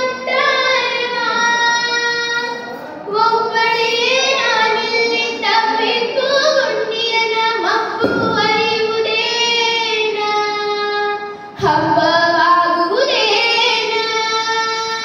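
A young girl singing solo and unaccompanied into a handheld microphone, in long held phrases with wavering, ornamented notes and short breaths between phrases.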